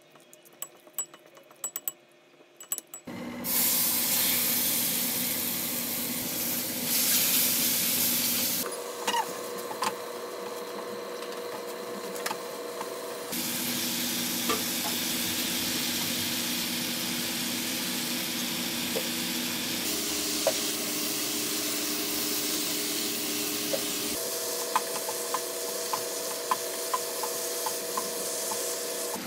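Spicy-marinated chicken and cabbage sizzling in a frying pan on a gas stove, stirred with a spatula, with small scraping clicks over the steady sizzle. It opens quietly with a few soft clicks of a wooden spoon mixing the chicken in a glass bowl, and the sizzle starts about three seconds in.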